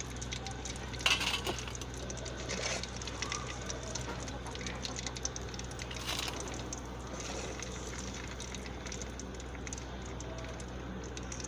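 Chicken cheese balls frying in oil on a low flame, a faint steady crackle, with two short clinks about a second in and about six seconds in.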